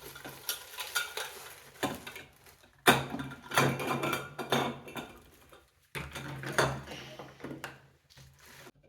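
Steel rods of a baby dining chair clinking and knocking against each other in irregular clusters as they are unpacked and handled.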